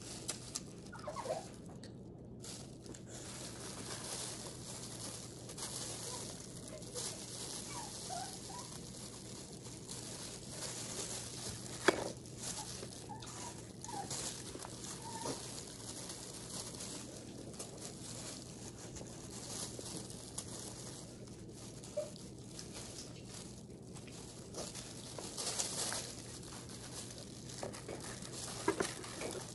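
Eating mouth sounds: quiet chewing and sucking with short squeaky slurps and scattered sharp clicks, one louder click about twelve seconds in, over a steady hiss.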